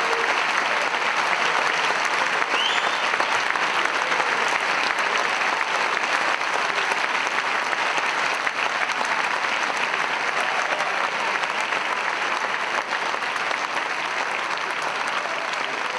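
Large audience applauding steadily, easing off slightly toward the end.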